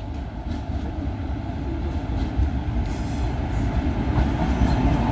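Train approaching on the railway line, its low rumble growing steadily louder.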